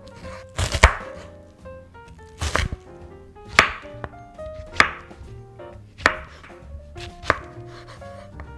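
Kitchen knife chopping an onion and then button mushrooms on a wooden cutting board. The blade knocks against the board about once a second, a little unevenly.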